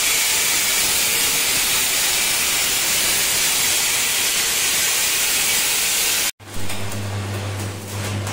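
Angle grinder cutting through a steel bracket on a tractor, a steady loud grinding hiss. About six seconds in it cuts off abruptly and is replaced by arc welding: electric crackle over a steady low hum.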